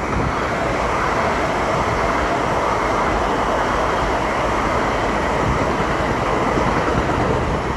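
Long Island Rail Road M9 electric multiple-unit train passing through the station without stopping: a steady, loud rolling noise of wheels on rails over a low rumble as the cars go by.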